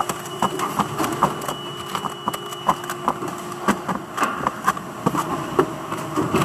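Yellow plastic containers clicking and clattering in quick, irregular knocks as gloved hands flip, fan and stack them. A steady machine hum runs underneath for the first three seconds or so.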